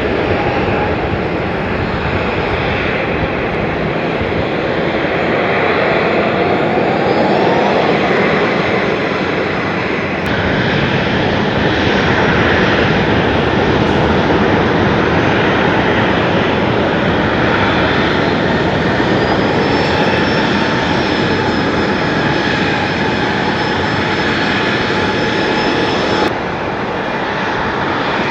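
Airliner engines running loud and steady, a broad roar with whining tones that slide in pitch. The sound changes abruptly about ten seconds in and again near the end.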